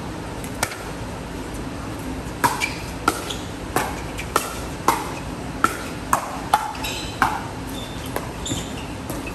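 A pickleball rally: sharp, ringing pops of paddles hitting the hollow plastic ball, one just after the start and then about nine in quick succession, roughly one every half second, from about two and a half seconds in.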